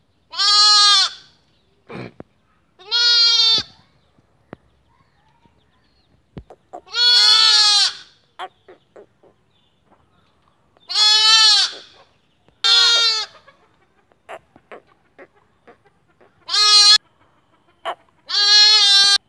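Young lambs bleating: seven high bleats of about a second each, coming at uneven gaps, with faint short clicks between them.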